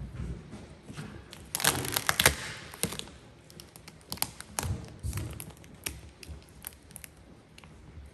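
Gloss black vinyl wrap film being handled on a car door handle: a burst of crackling about a second and a half in, then scattered taps, clicks and light thuds.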